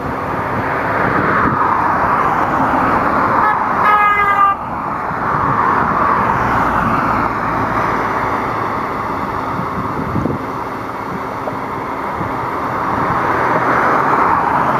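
Steady rush of passing road traffic that swells and fades, with one short car horn toot about four seconds in.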